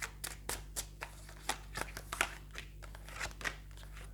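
Tarot cards being shuffled and handled: a run of short, irregular card clicks and slaps, two or three a second.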